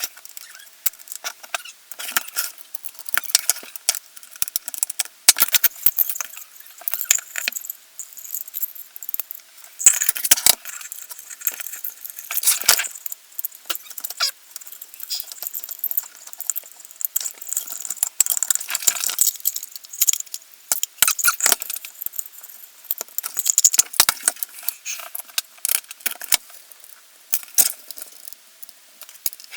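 Small metal gearbox parts and hand tools clicking and clinking in quick, irregular taps as an airsoft V2 gearbox is worked on by hand.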